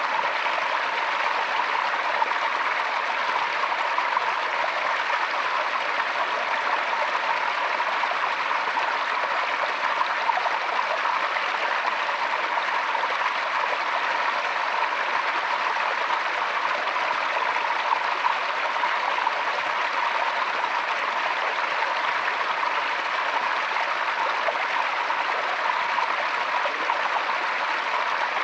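Forest stream flowing over rocks, a steady, even rush and babble of water that does not change.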